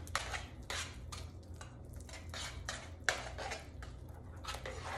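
A utensil clinking and scraping against a mixing bowl while stirring a thick oat cookie mixture, irregular strokes about two a second.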